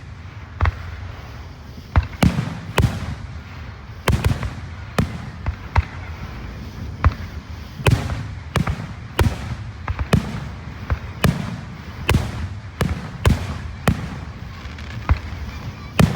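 Fireworks going off: a rapid, irregular run of sharp bangs, roughly one or two a second, each followed by a short rumbling echo.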